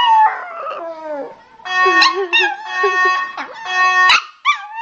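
A dog howling, long wavering calls that slide up and down in pitch, over a fire alarm sounding a steady, fixed-pitch tone that switches on and off.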